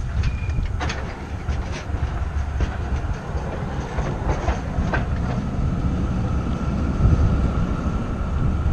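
Wind rumbling on the microphone of a bicycle-mounted camera, with sharp clicks and rattles as the bike rolls over tram rails and a switch in the first five seconds, over the running noise of a tram just ahead. A faint steady whine comes in after about five seconds.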